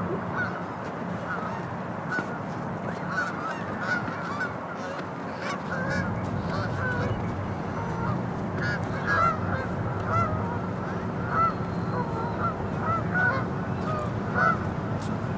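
A flock of birds calling: many short, overlapping calls that grow busier in the second half, over a steady low rumble.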